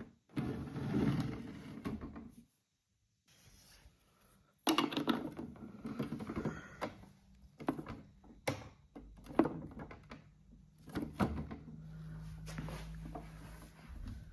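Plastic clicks and knocks from a toy washing machine being handled, then its small battery-driven drum motor humming steadily through the second half.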